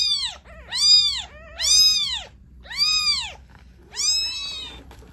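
A week-old newborn kitten crying five times, about a second apart. Each cry is a loud, high mew that rises and then falls in pitch. Strong crying like this is a sign of vigour, which the carer finds reassuring.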